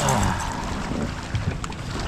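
Wind buffeting the microphone in a steady, rumbling rush, with water moving around a kayak on open lake water.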